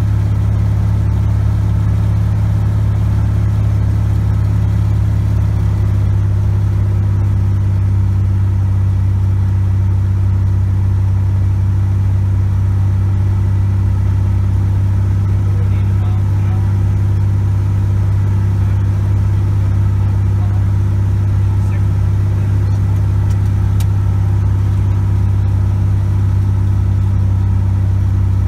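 Cessna 180 Skywagon's six-cylinder Continental O-470 engine and propeller droning steadily in flight, heard from inside the cockpit.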